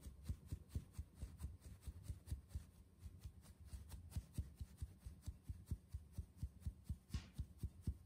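Steady, rhythmic soft taps of a palm against the rim of a stainless steel mesh sieve, about four a second, knocking flour through the mesh.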